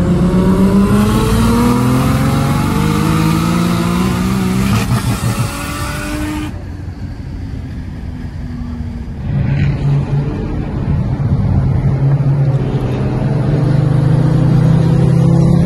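Race car engine at hard throttle, its note climbing steadily in pitch as it pulls through a gear. About six and a half seconds in the sound changes abruptly and drops lower. From about nine and a half seconds a strong engine note builds again and slowly rises.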